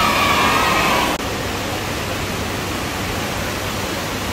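Steady rushing of water pouring across a stationary-wave surf ride, with a person's long high call over it in the first second. About a second in it cuts abruptly to a slightly quieter, even rush of water.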